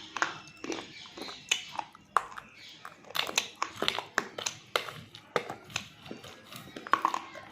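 Close-miked crunching and chewing of hard, chalky mineral pieces, with sharp crunches coming in quick irregular succession.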